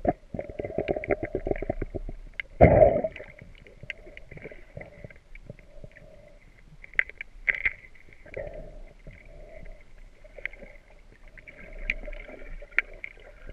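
Muffled underwater sound picked up by a GoPro in its waterproof housing, which is leaking: a dull rumble with many small ticks and scattered crackling clicks, and one louder thump about two and a half seconds in.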